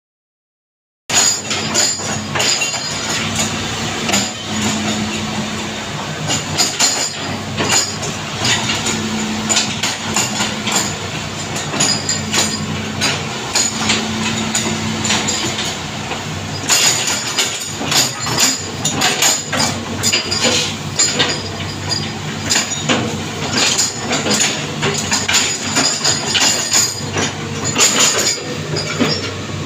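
Hitachi ZX210F-5G hydraulic excavator working: its diesel engine runs with a steady low hum under frequent sharp metallic clanks and clinks. The sound starts about a second in.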